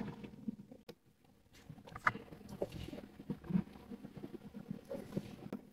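Faint, irregular soft rustling and small ticks of crumbly panjeeri (roasted wheat flour with ghee and jaggery) being mixed and sifted by hand in a steel pan.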